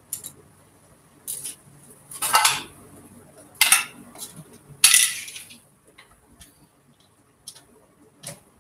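Small metal parts and tools clinking and rattling as a Singer sewing machine is worked on by hand: a handful of sharp clinks in the first five seconds or so, then only a few faint ticks.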